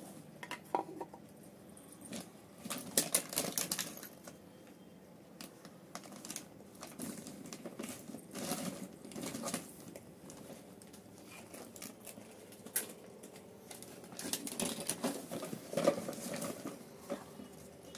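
Plastic toy kitchen pieces (cups, teapot and dishes) clicking and clattering as they are picked up and set down on a table, in three main flurries of light knocks.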